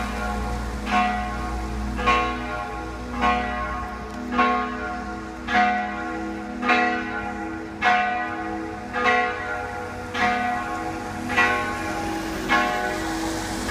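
Three church bells ringing together in a full peal, strokes falling about once every second and a bit, their tones overlapping and ringing on between strokes.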